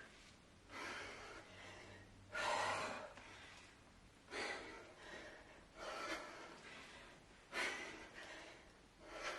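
A woman's heavy, forceful breaths from exertion, about six in all, one every one and a half to two seconds, in rhythm with repeated kettlebell thrusters (squat and press).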